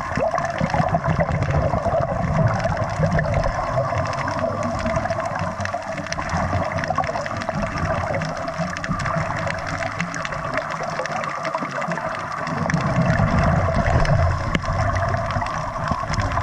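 Underwater scuba-diving sound: a diver's exhaled breath bubbling out of the regulator, over a steady muffled water noise, with a louder bubbling surge about thirteen seconds in.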